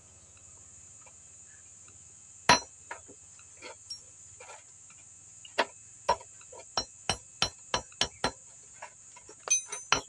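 Small hammer tapping a bicycle chain's link pin on a steel block, riveting the shortened chain back together. One sharp strike about two and a half seconds in, then a run of light metallic taps, about three a second, from about halfway.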